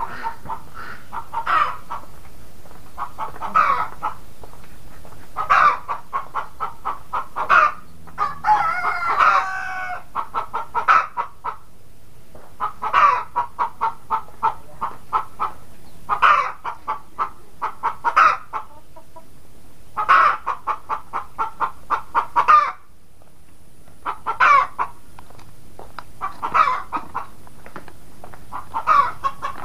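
Domestic chickens clucking in repeated runs, a loud note every second or two trailed by quick short clucks, with a rooster crowing once, a longer wavering call about eight seconds in.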